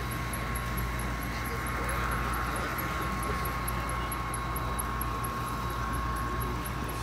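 Exhibition-hall ambience: a steady murmur of background crowd voices over a constant hum and a faint steady tone.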